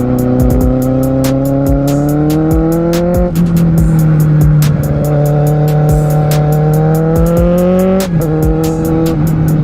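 Kawasaki Z750R inline-four motorcycle engine under acceleration, its pitch climbing and then dropping at gear changes about three and eight seconds in, with a fast, even ticking running alongside.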